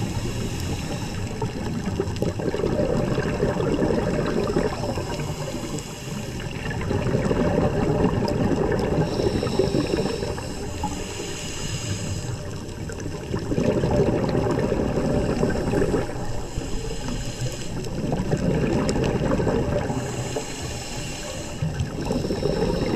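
Scuba diver breathing through a regulator underwater: several slow breaths, each a hissing inhale followed by a low rumble of exhaled bubbles.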